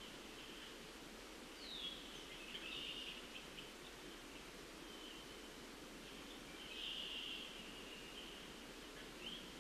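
Faint songbird song: a few short phrases, each a high sliding note or a buzzy trill, about 2 seconds in, around 7 seconds and again near the end, over a steady low hiss of outdoor background noise.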